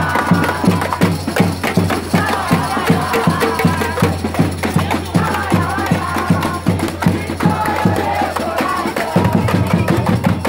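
A crowd of students chanting and shouting over fast, steady drumming and percussion, a loud celebratory racket.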